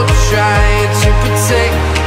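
Background music: a pop-electronic track with a kick drum about twice a second over bass and melody; about one and a half seconds in the beat drops out, leaving a held bass note.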